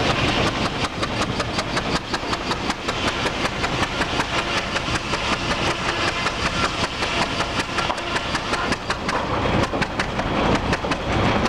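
1913 International Harvester Titan 45 hp tractor engine running steadily while powering a sawmill, with a quick, even beat of several knocks a second.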